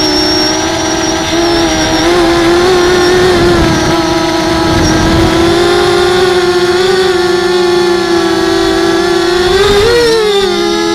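A 250 mm FPV racing quadcopter's brushless motors and propellers give a loud, steady buzzing whine that wavers slightly in pitch with the throttle. Just before the end it dips and rises again in a quick throttle change.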